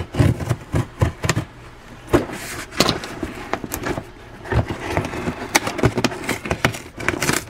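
Cardboard shipping box being handled and turned over on a workbench: an irregular run of knocks and scrapes, with heavy fishing reels shifting and clunking loose inside it, packed without padding.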